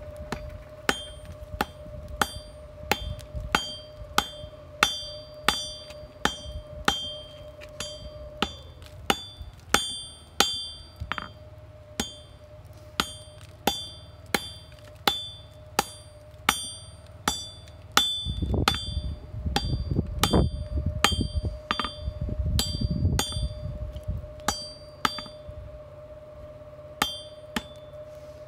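Hand hammer striking red-hot steel on an anvil, about one and a half blows a second, each with a bright metallic ring from the anvil: forge welding square stock folded over on itself. The blows stop near the end, with two last strikes after a short pause.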